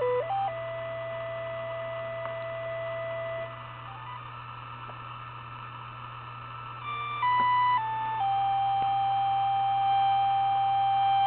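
Homemade Auduino, an Arduino-based granular synth, playing steady electronic tones. It holds one note for about three seconds, goes quieter for a few seconds, then jumps through a few stepped notes and holds a slightly higher note until the end. A steady low hum runs underneath.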